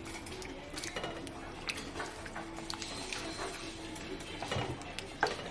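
A spoon stirring thick beef stew in a Dutch oven, with irregular clinks and scrapes against the pot and a sharper knock near the end.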